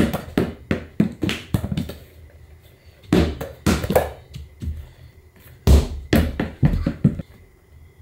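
Small rubber basketball bouncing on rubber gym flooring and being caught: a quick run of thuds over the first two seconds, then more bunches of thuds a few seconds in and toward the end.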